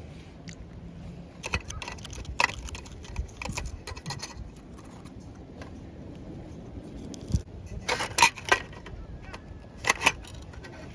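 Scattered light clicks and clinks of small hard objects being handled, with a denser cluster about eight seconds in and a few more near the end.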